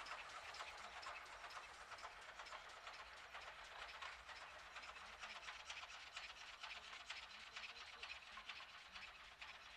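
Faint hiss and running noise of GWR small Prairie 2-6-2T steam locomotive no. 5553 and its train drawing away, slowly fading.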